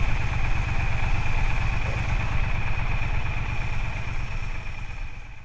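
Triumph Speedmaster's parallel-twin engine running steadily at low revs with an even low pulsing beat, fading out near the end.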